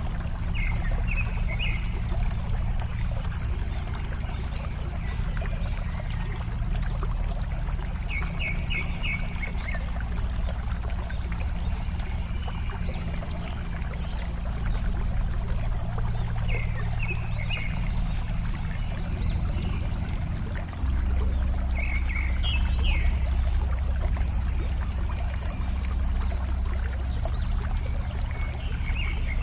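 Steady rush of flowing water, heavy in the low end and a little louder about two-thirds of the way through, with short bursts of bird chirps breaking in about five times.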